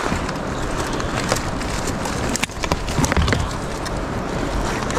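Steady rushing water with a few scattered knocks and clicks.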